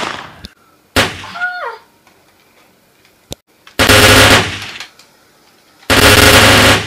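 Movie-style machine-gun sound effects laid over a toy Nerf blaster: a short blast at the start and another about a second in, then two long bursts of automatic fire of about a second each, around four and six seconds in.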